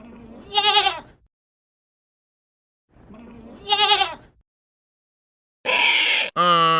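Sheep bleating twice, each a wavering call of about a second, the two some three seconds apart. A louder, different sound starts near the end.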